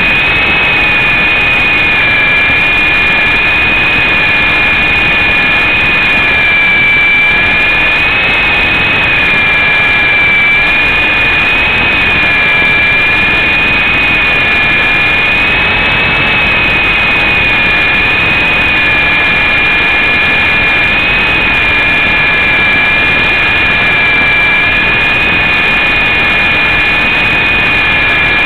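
Syma S033G RC helicopter's small electric motors and rotors whining steadily in flight, heard close up through its own onboard camera microphone, the pitch wavering slightly up and down as the motors work.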